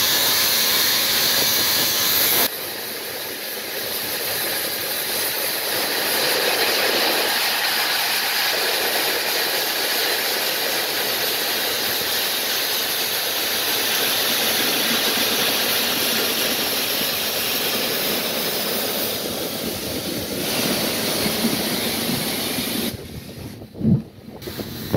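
Steam hissing steadily from a standing LMS Black Five steam locomotive. The hiss is loudest for the first couple of seconds, drops abruptly, carries on evenly, and cuts off near the end.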